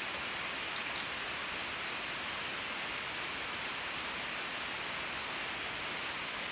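Steady, even hiss of room tone and microphone noise, with no distinct events.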